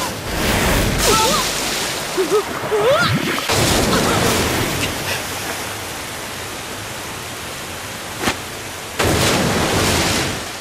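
Animated water sound effects: rushing, splashing water that swells in surges about half a second in, around four seconds in and around nine seconds in, with a lower steady hiss between them. A few short sliding tones sound in the first three seconds.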